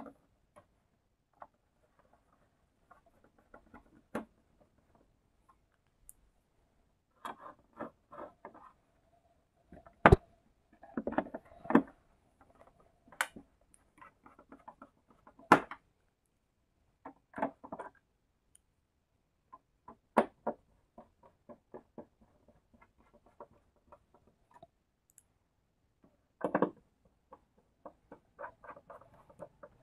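Screws being driven and plastic parts of an LED TV's casing being fitted back together: scattered clicks and knocks, a few sharper knocks, and short runs of quick ticking.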